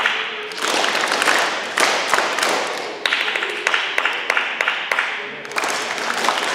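A group of people clapping, with many sharp taps and claps coming in swells a second or two long.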